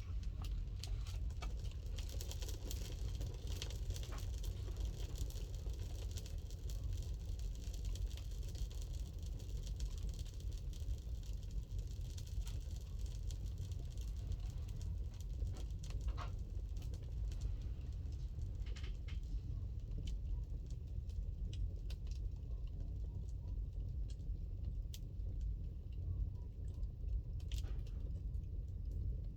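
Wood fire burning in a fireplace: a steady low rumble with irregular crackles and pops scattered throughout.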